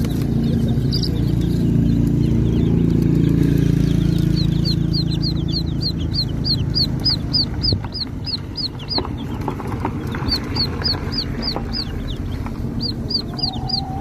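Chicks peeping in quick runs of short, high, downward-sliding peeps, about three a second, starting about four seconds in. Under them is a low steady rumble that fades out about halfway through.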